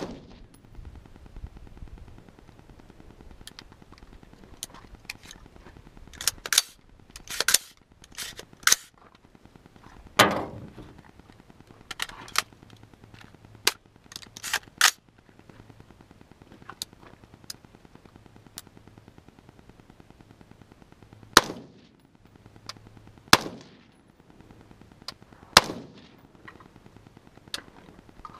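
A single shot from a Smith & Wesson M&P15 AR-style rifle right at the start, the loudest sound. Scattered sharp cracks and clicks follow, quieter and irregular, a few with a short echoing tail.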